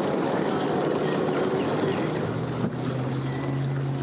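Boat engines idling at the dock, a steady low engine hum.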